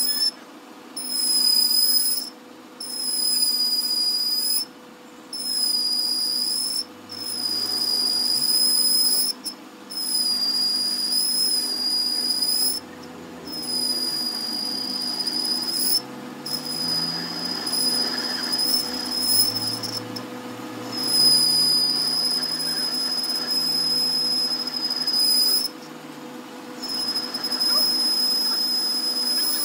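Lathe tool cutting a spinning steel part, giving a steady high-pitched squeal that breaks off briefly every few seconds, over the lower hum of the running lathe.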